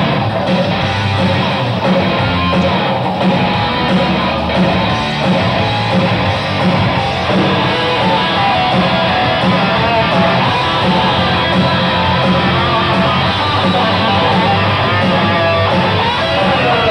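Live rock band playing loud and steady: distorted electric guitars over drums.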